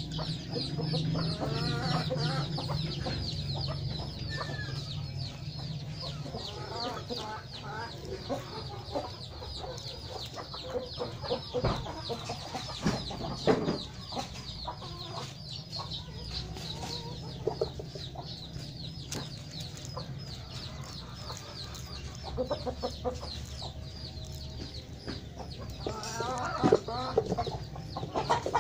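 Chickens clucking at intervals over a continuous high, rapid chirping, with a few sharp clicks around the middle and near the end.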